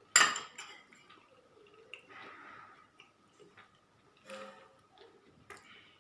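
A person eating: a sharp clink of tableware just after the start, then chewing and small mouth and eating noises. A faint steady high tone runs underneath.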